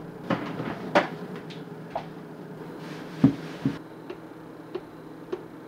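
A few knocks and clunks, the loudest about three seconds in, then light clicks about every half second as the touchpad buttons of an electric range's oven control are pressed to set the oven temperature.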